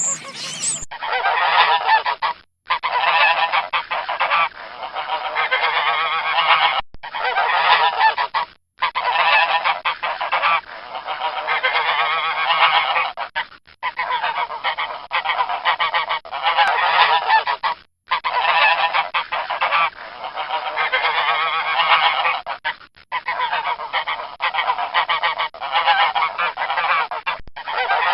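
Domestic geese honking over and over, in stretches of a few seconds broken by short, abrupt silent gaps.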